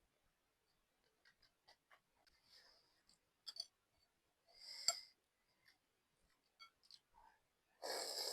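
Quiet eating of instant noodles: soft, scattered mouth clicks of chewing, a short noisy burst with a sharp click about five seconds in, and a louder noisy burst starting near the end.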